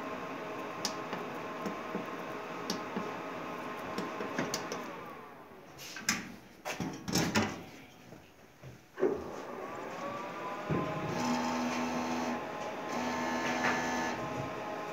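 Printer with an Epson DX5 print head running its motors: a steady mechanical whine winds down about five seconds in, a few sharp clicks and knocks follow, then the motors spin back up with a rising whine and run on with stepping tones. The machine is not printing and reports that no media is loaded.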